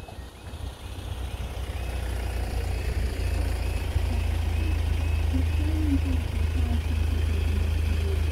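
Level crossing alarm sounding a repeating tone about two and a half times a second. Under it, the diesel engine of an approaching Class 170 Turbostar multiple unit grows to a steady low hum over the first few seconds, then holds.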